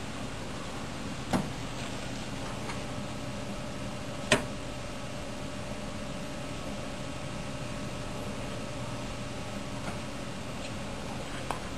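Steady hum of running office equipment with a faint steady tone, broken by two sharp clicks, one about a second and a half in and a louder one about four seconds in.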